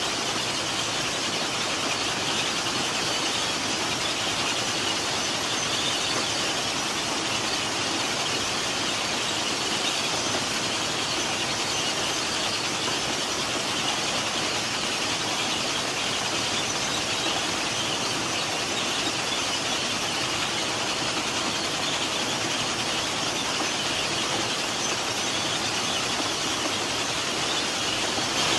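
Plasser & Theurer PM 1000 URM track machine working: a steady, unbroken hissing and grinding noise from its conveyors and the gravel pouring out of its chutes, strongest at the high end.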